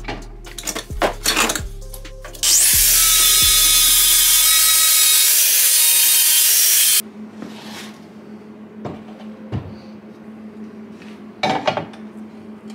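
Angle grinder spinning up and cutting into the steel bracket of an electric hoist for about four and a half seconds, then stopping suddenly. Knocks from handling the parts come before and after, under background music.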